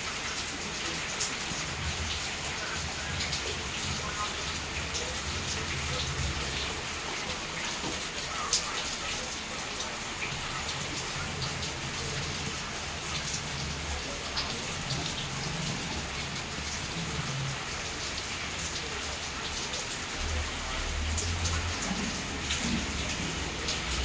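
Steady rain falling, an even hiss scattered with small drop ticks. A low rumble builds in the last few seconds.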